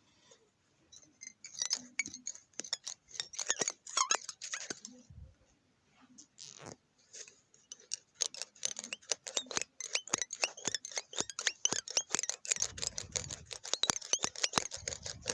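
Computer keyboard being typed on: rapid, irregular key clicks, a first spell about one to five seconds in, then a denser, steadier run from about eight seconds on.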